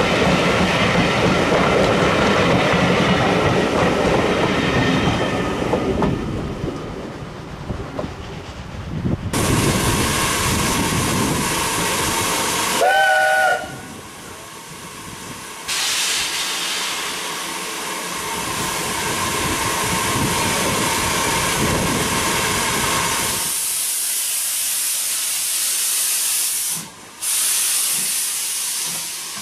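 Passenger coaches rolling past, their wheels clattering over the rails. About halfway through, a short steam whistle blast. Then the USA class S100 tank engine hisses steam steadily as it stands at the platform, the hiss turning sharper and higher near the end.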